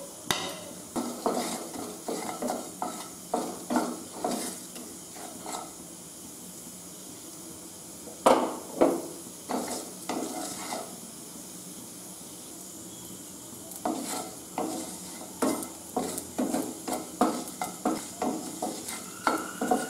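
Wooden spatula stirring and scraping whole coriander seeds, cumin seeds and dried red chillies as they dry-roast in a nonstick wok, seeds rattling across the pan in short strokes. The stirring comes in bouts, with a pause of a few seconds past the middle and a faint steady hiss underneath.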